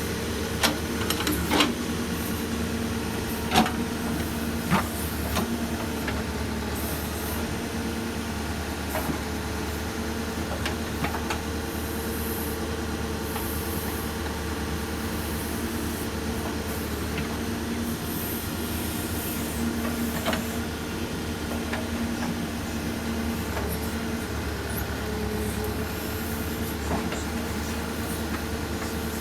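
Case 770FX backhoe loader's diesel engine running steadily while working, with sharp metallic clanks, several in the first five seconds and a few more scattered later.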